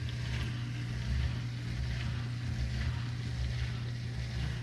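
Dishwasher drain pump running with a steady low hum, pumping the water out of the tub into the drain line.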